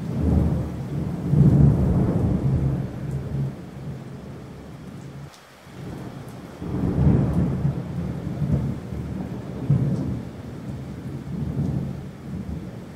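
Rolling thunder with rain hiss: low rumbles that swell and fade, loudest about a second in, again around seven seconds and near ten seconds.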